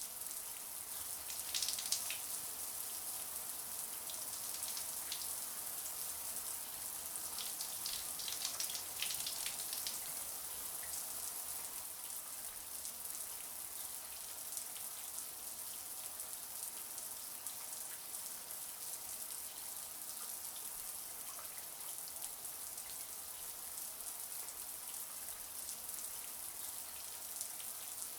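Shower running: a steady hiss of falling water, with a few louder spatters about two seconds in and again between eight and ten seconds in.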